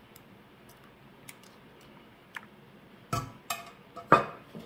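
Metal soup ladle knocking and clinking against a stainless steel pot and a bowl as soup is ladled out: faint ticks at first, then several sharper knocks with a short ring in the last second and a half.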